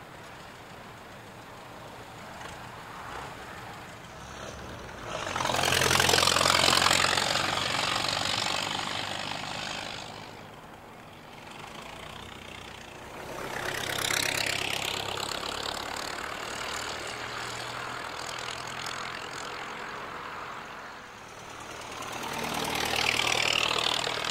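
Ford Model T four-cylinder flathead engines running as vintage Model T speedsters drive past one after another: three pass-bys, each rising and fading away, the loudest about six seconds in.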